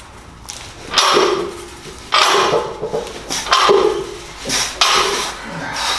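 A loaded barbell being pressed for reps: a series of short, sharp bursts about once a second as the lift goes on.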